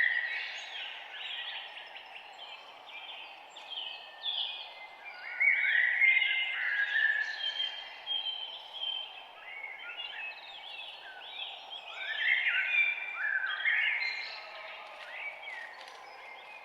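A dawn chorus of several songbirds chirping and trilling over one another, with louder stretches about a third of the way in and again past the middle, above a steady low background hiss.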